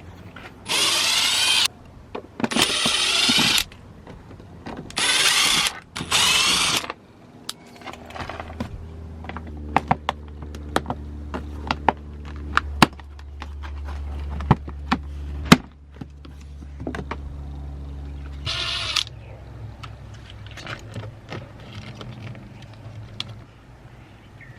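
A cordless power drill run in four short bursts of about a second each, then scattered clicks and knocks of trim and fasteners being worked loose, with a steady low hum in the middle and one more short drill burst later on.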